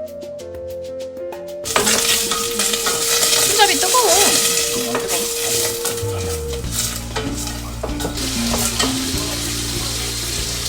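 Food sizzling and frying in a hot pan while being stirred, starting suddenly a couple of seconds in, with background music playing underneath.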